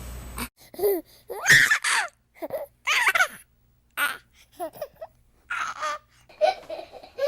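Baby sound effects: a string of short infant cries, gasps and laughs with brief gaps between them. A steady background hum cuts off suddenly about half a second in.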